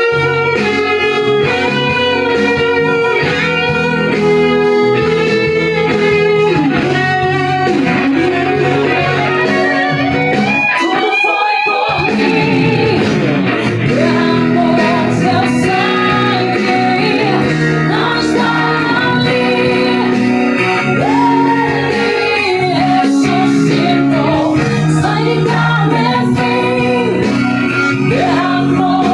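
Electric guitar playing quick picked melodic runs, improvised along with a recorded gospel song. Around twelve seconds in, a woman's singing comes in over the band and guitar.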